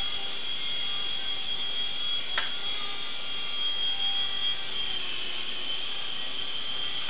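Mini remote-control helicopter's small electric motor and rotors whining steadily at a high pitch while it flies.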